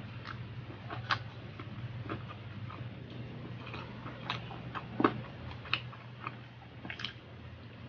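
Close-miked eating by hand: irregular wet mouth clicks and lip smacks from chewing garlic fried rice and longganisa, with a sharper smack about five seconds in, over a low steady hum.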